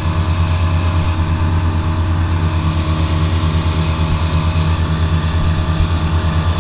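An engine running steadily at constant speed, with a strong low hum.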